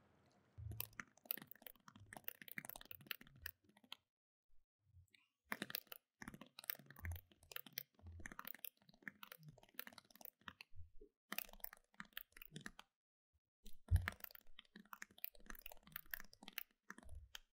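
Faint typing: quick runs of key clicks with an occasional heavier thump, breaking off twice for a second or so.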